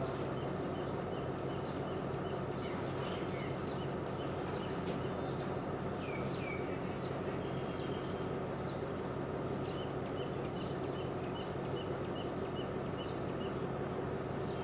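Steady low hum of a standing train's idling diesel engine, with small birds chirping again and again over it.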